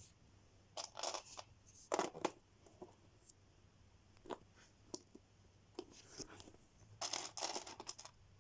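Lego set packaging being handled: short bursts of crinkling and rustling with a few small clicks between them, the longest burst near the end.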